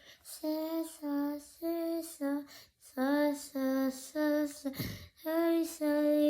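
A young girl singing a tune without clear words, in a run of short, evenly held notes with brief gaps between them.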